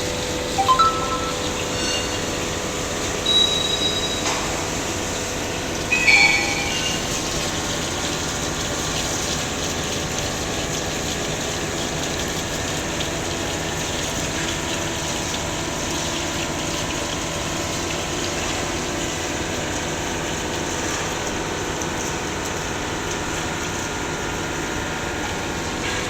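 CNC machine cutting an 8TR thread: steady machine running noise with a constant hum. A few short chime-like tones come in the first six seconds.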